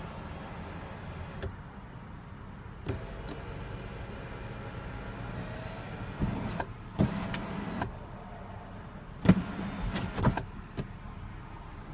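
BMW X6 power glass moonroof and sliding sunshade being worked: an electric motor runs, with several clicks and knocks. The loudest knock comes about nine seconds in.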